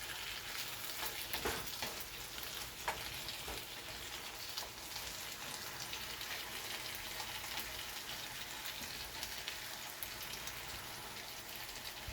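Diced chicken, bell peppers and onions sizzling steadily in a frying pan, with a few sharp clicks of a utensil stirring in the first few seconds.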